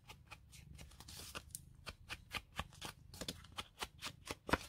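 Paper being distressed by hand: a run of quick, irregular scratchy rustles and taps, faint, with a couple of sharper strokes near the end.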